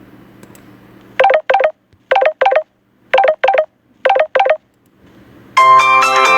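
Smartphone ringtone previews played through the phone's speaker. A telephone-style ring sounds in four quick double rings, about one pair a second. After a brief pause, a different, musical ringtone starts about five and a half seconds in.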